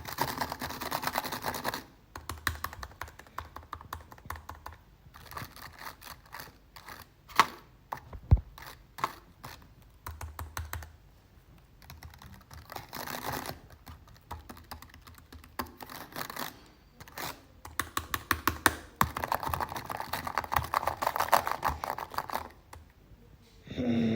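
Computer keyboard being typed on: quick runs of rapid keystrokes at the start and again about three-quarters of the way through, with slower, scattered key presses and a few harder single strikes in between.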